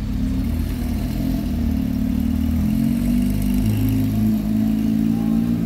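Porsche 911 GT3 RS flat-six engine running as the car drives slowly past at street speed: a steady low drone with small shifts in pitch.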